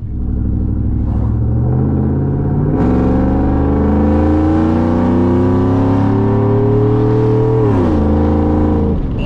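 A 2011 GMC Sierra's 5.3-litre V8, fitted with long-tube headers, no catalytic converters and a Magnaflow Bullet muffler, is accelerating hard with its loud exhaust note climbing. Throttle opens further about three seconds in and the revs rise steadily, then fall quickly as the throttle is lifted near the end.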